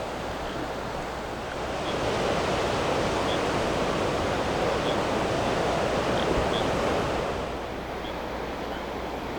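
Ocean surf on a beach: a steady wash of waves, with one wave swelling louder about two seconds in and easing back off near the end.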